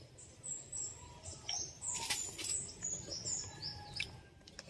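Wild birds chirping, a series of short high whistled calls, with a few sharp clicks among them.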